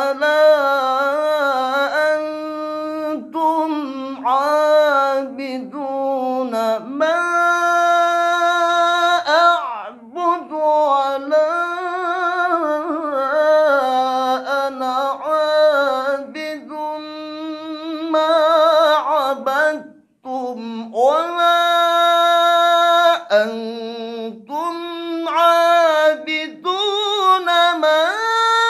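Male qari's unaccompanied voice in melismatic Quranic-recitation style, holding long wavering notes that slide between pitches. It breaks briefly twice for breath and climbs to its highest notes near the end.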